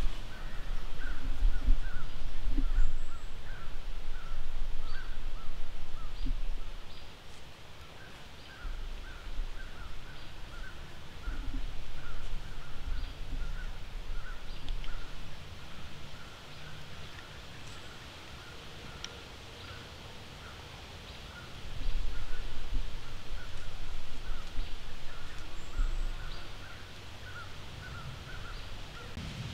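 Outdoor woodland ambience: faint short chirps repeat evenly about twice a second throughout. Low rumbling noise on the microphone comes and goes in stretches, loudest near the start and again about two-thirds of the way through.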